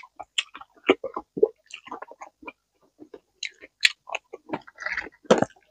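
Close-miked chewing of Thai green papaya salad with long beans: irregular crunches and wet mouth sounds.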